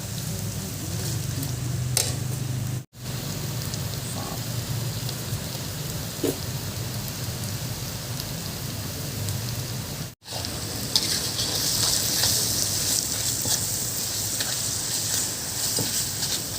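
Food frying in hot oil in a pan: a steady sizzle with scattered crackles, louder and brighter from about two-thirds of the way in.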